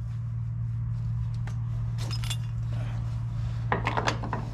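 Light metallic clinks and rattles from a freed throttle cable and its small end fittings being handled, a few scattered and a quick cluster near the end, over a steady low hum.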